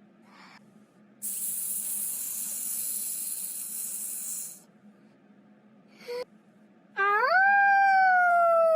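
A snake-like hiss lasting about three seconds, then, about seven seconds in, a long drawn-out animal call that swoops up and then slowly falls in pitch.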